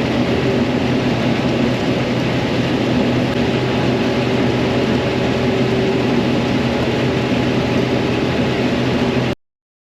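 Farm machinery engine running steadily, a loud, even drone of low hum tones over a rushing noise, cutting off abruptly near the end.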